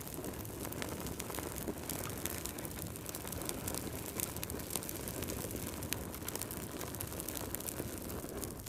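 Fire burning in a fireplace: a steady low rumble of flames with many small sharp crackles and pops scattered throughout.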